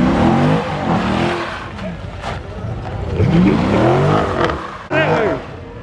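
Dodge Challenger Scat Pack's 6.4-litre HEMI V8 revving up and falling back twice, once at the start and again about three seconds in, as it does donuts with its rear tyres spinning in a steady hiss.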